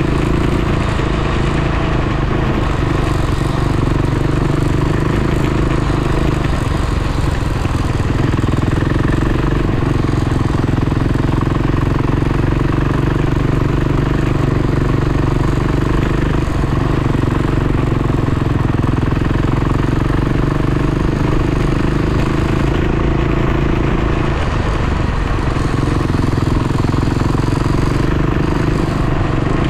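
Dirt bike engine running at a steady, moderate throttle while being ridden, with a couple of brief dips in pitch.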